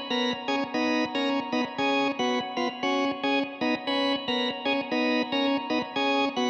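Background music: short pitched notes, guitar-like, changing in a steady rhythm.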